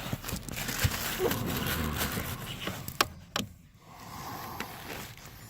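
Handling noise from working under a car's dashboard: rustling and small knocks, with two sharp clicks about three seconds in, then quieter.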